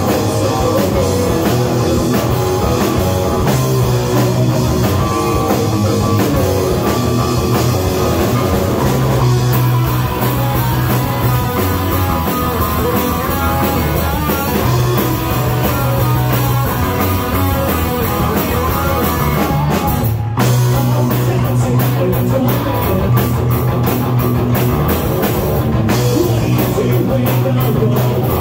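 Live rock band playing: electric guitar, electric bass and a drum kit, with a momentary break about twenty seconds in before the band comes back in.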